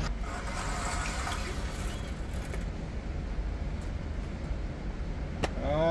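Steady low mechanical rumble of indoor range machinery, with one sharp click about five and a half seconds in.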